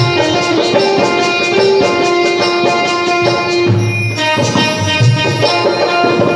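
Instrumental devotional tune (dhun): a sustained, held melody over a steady beat of hand percussion, with a short break in the melody about four seconds in.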